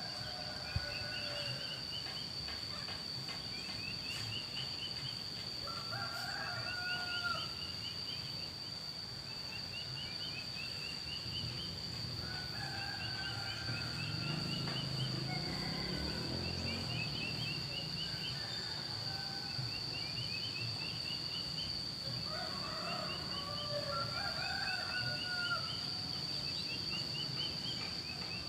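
Roosters crowing at intervals, mixed with a small bird repeating a quick rising chirp phrase every couple of seconds, over a steady high-pitched drone.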